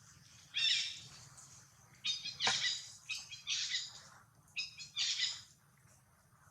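Baby monkey giving a series of short, high-pitched squealing cries, about seven in quick groups, typical of an infant monkey calling for milk.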